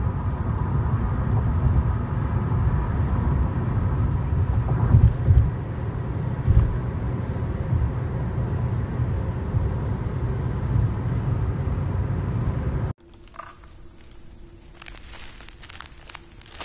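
Steady road and engine rumble heard inside a car cruising on a highway. It cuts off about 13 seconds in, and is followed by the crackle of a plastic-wrapped package being handled.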